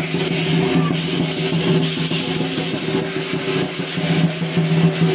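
Lion dance percussion: a large drum beaten with cymbals clashing over it, and a steady ringing tone underneath.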